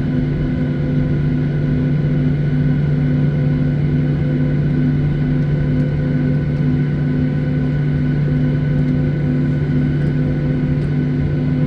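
Steady cabin drone of an airliner in flight: the jet engines hum in several steady tones over a constant rush of airflow.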